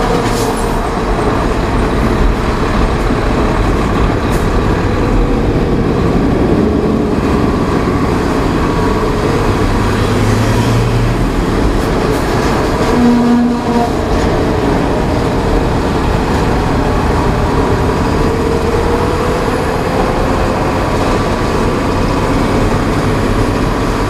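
Vehicle cabin at highway speed: steady engine drone with tyre and road noise, and a brief low hum about halfway through.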